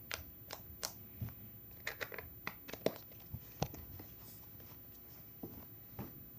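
A string of small clicks, knocks and crinkly handling noises at an uneven pace, busiest about two to four seconds in.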